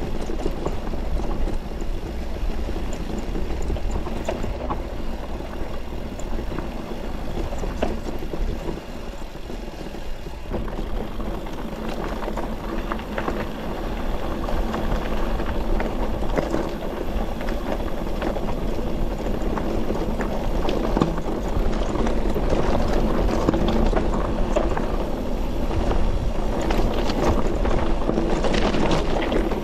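Electric mountain bike riding over a rough track: tyres crunching and the bike rattling, with wind rumbling on the handlebar-mounted camera's microphone. It gets louder and busier about two-thirds of the way through.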